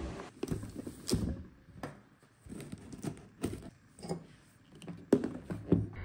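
A series of irregular knocks and clicks, about a dozen spread unevenly with short quiet gaps, the loudest pair a little after five seconds in.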